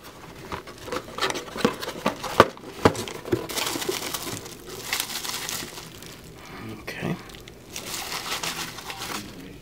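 Packaging being handled during an unboxing: crinkling and rustling of wrapping, with scattered sharp clicks from handling, in two longer stretches of rustle.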